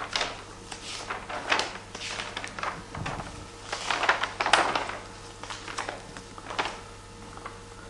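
Paper pages of a large album being turned and handled: a series of rustles and swishes, the biggest about four seconds in, over a faint steady low hum.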